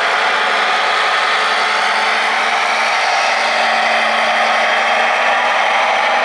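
Radio-controlled model truck driving, giving a steady mechanical whirring and drive noise with a faint steady hum underneath.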